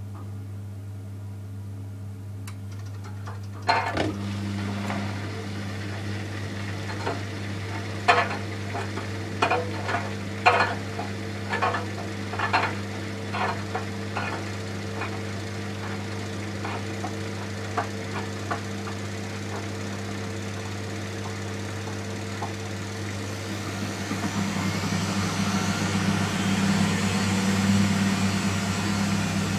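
Miele Softtronic W 435 Plus front-loading washing machine mid-programme, its drum motor humming steadily as the drum turns a single pillow. From about four seconds in come irregular knocks and sloshing for some fifteen seconds. A steadier rushing noise builds near the end.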